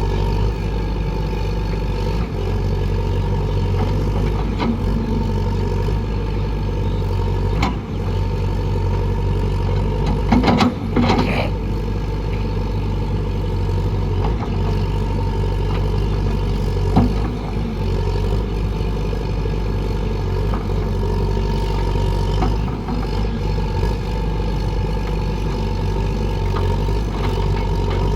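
Excavator's diesel engine running steadily, with a few short knocks, the most of them about ten seconds in.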